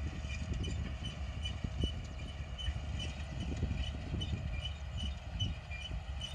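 MR70 tractor running steadily while pulling a drill seeder, a continuous low engine rumble. Above it runs a faint, regular high ticking, about two to three ticks a second.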